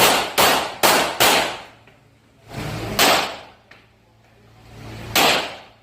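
Rock Island Armory Tac Ultra FS HC pistol firing six shots, each ringing briefly after it. Four come quickly within the first second and a half, then single shots about three and five seconds in.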